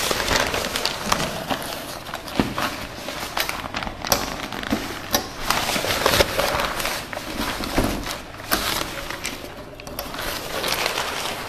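Large sheets of chart paper being lifted and flipped over: an irregular rustling with many short, sharp crinkles.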